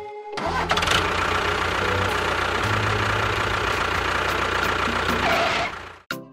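Small electric motor of a mini DIY water pump running steadily with a low hum, switched on just under half a second in and cutting off suddenly near the end.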